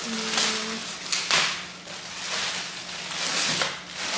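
Plastic packaging bag rustling and crinkling as it is pulled off a juicer's motor base, in about three swells.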